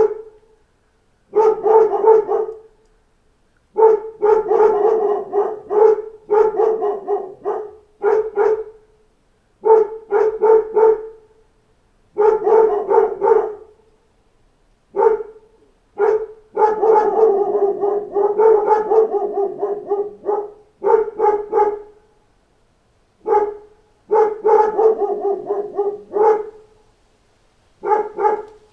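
A pack of dogs barking in repeated bursts, each a cluster of rapid barks lasting from half a second to about four seconds, with short silent gaps between them.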